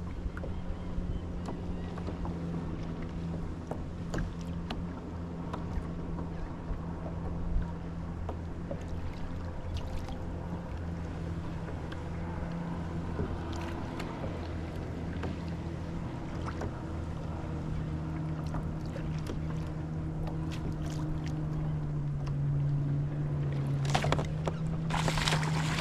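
Steady low hum of the kayak's motor drive, with scattered light clicks. Near the end comes a short rush of rough noise as a fish is hooked and the rod bends.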